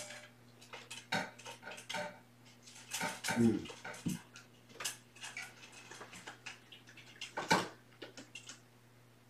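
Irregular light clicks and clinks of small hard objects, a dozen or so scattered through, the sharpest about seven and a half seconds in.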